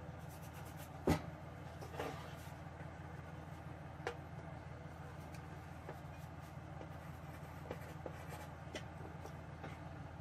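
A steel computer-case panel being handled and marked out with a pencil: a sharp knock about a second in, a few lighter knocks and clicks, and faint pencil scratching, over a steady low hum.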